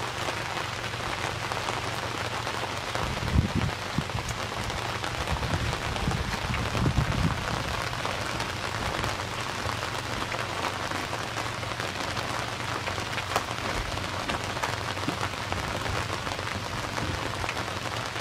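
Steady rain falling on the boat and the water, an even hiss throughout, with a few low knocks around three and seven seconds in.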